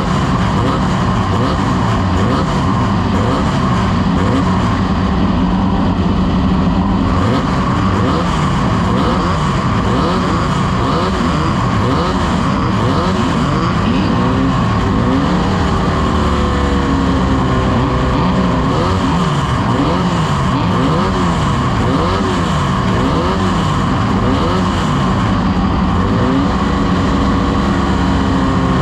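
Engines of several off-road race vehicles running at once, repeatedly revving up and dropping back, their sounds overlapping.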